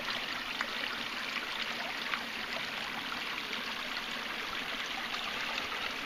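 Small mountain brook running over rocks, a steady trickling.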